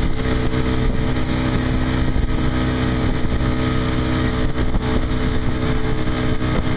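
Motorboat engine running steadily at towing speed, a continuous hum with the rush of the churning wake water over it.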